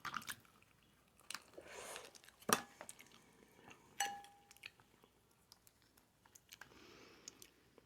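Quiet eating of seafood-boil shellfish: scattered sharp clicks of shells being handled and soft chewing, with a short ringing clink about four seconds in.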